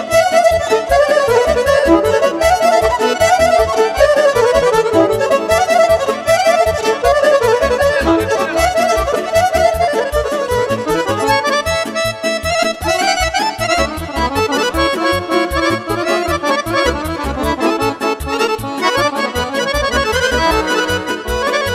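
Instrumental break of Romanian party music: a Roland V-Accordion plays the lead melody over a keyboard backing with a steady beat.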